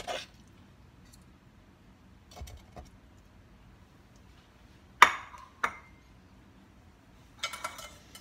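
Metal serving tongs and a ceramic plate clinking against a stainless steel pot and a stone counter as spaghetti is dished out: a few light clicks, a loud ringing clink about five seconds in followed by a second, and a quick run of clinks near the end.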